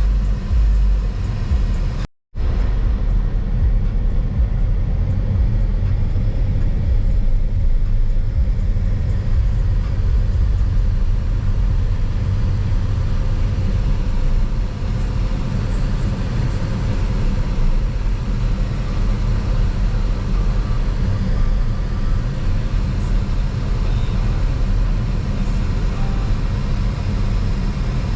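Steady low rumble of a car on the road, engine and road noise, with a brief cut to silence about two seconds in.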